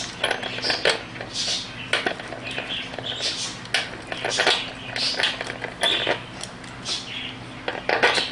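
Hands fitting small metal parts (bolts and washers) into the air suspension pump's housing: irregular clicks, scrapes and rustling, over a steady low hum.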